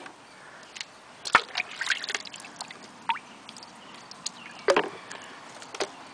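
River mussel and clam shells being handled and rinsed by hand in a plastic tub of water: water sloshing and trickling, with a handful of sharp clicks and knocks as the shells strike each other and the tub.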